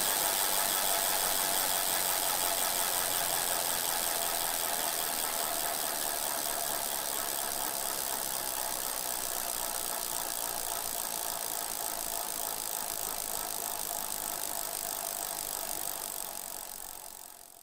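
Several bicycles being ridden: a steady whir and rattle of tyres and chains. It slowly gets quieter, then fades out near the end.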